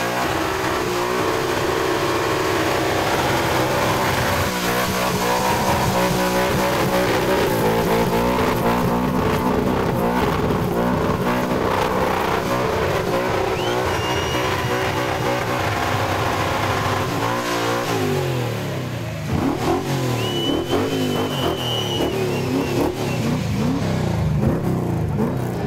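Car engines revving and accelerating hard. In the last several seconds the engine pitch rises and falls again and again.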